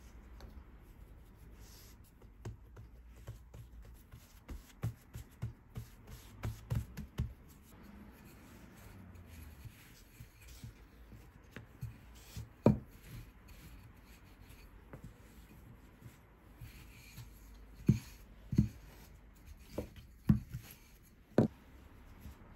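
Wooden rolling pin rolling out bread dough on a silicone mat, with hands pressing and handling the dough. A run of soft thumps comes in the first seconds, then a few sharp knocks of the pin against the mat: one about halfway and several close together near the end.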